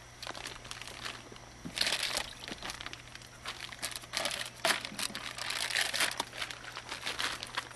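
Clear plastic bags of whole fish crinkling in several bursts as they are handled and lifted in and out of a plastic cooler.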